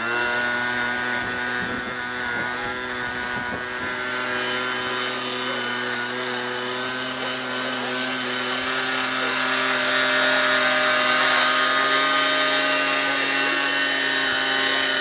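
T-Rex 600 nitro-powered R/C helicopter in flight, its glow engine and rotor running at a steady pitch. The sound gets louder about two-thirds of the way in.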